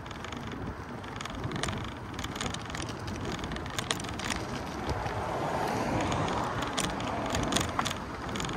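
Street ambience with passing road traffic: a vehicle's tyre noise swells from about five seconds in and eases off near the end, with scattered light clicks and taps over a steady background hum.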